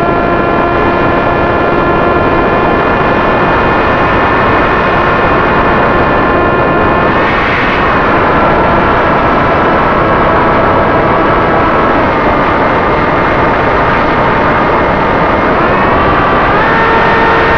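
Electric motor and propeller of a Flitetest Spear flying wing whining at high throttle, picked up by the plane's onboard camera under heavy wind rush. The pitch eases down slightly twice and climbs again near the end as the throttle changes.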